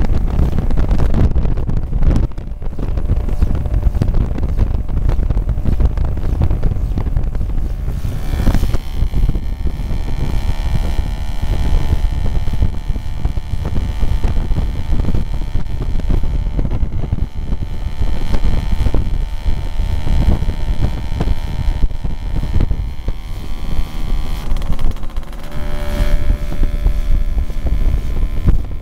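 Wind buffeting the microphone of a moving scooter. From about a third of the way in, a scooter engine is heard running at a steady note under the wind.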